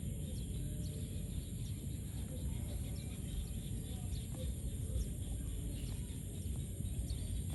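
Outdoor ambience: many short high chirps come at irregular intervals over a steady low rumble and a constant high-pitched hum.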